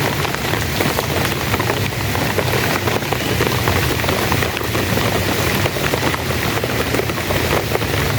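Heavy rain falling steadily, a dense even hiss with many close drops pattering.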